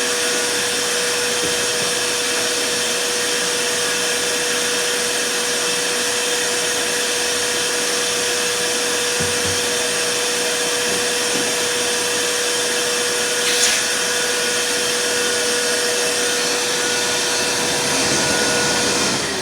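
Vacuum cleaner running steadily, a rushing air noise with a constant whine, with one brief knock in the middle. Near the very end the motor starts to wind down, its whine falling in pitch.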